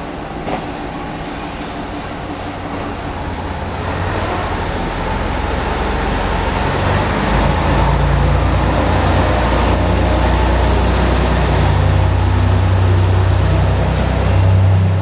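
KiHa 220 diesel railcar pulling away from a platform, its diesel engine working harder and growing louder over the first several seconds as the car gets under way, then a steady loud low drone as it runs past close by.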